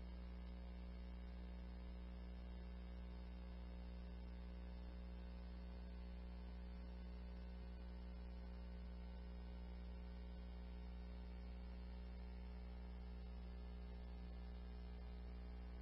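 Steady electrical mains hum with a stack of its overtones and faint hiss, unchanging throughout: the idle noise floor of a police radio recording with no one transmitting.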